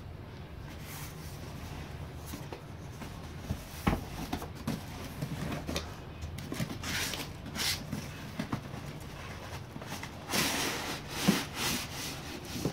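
Cardboard shipping box being opened by hand: flaps scraping and rubbing in irregular bursts, with a sharp knock about four seconds in and louder rustling near the end.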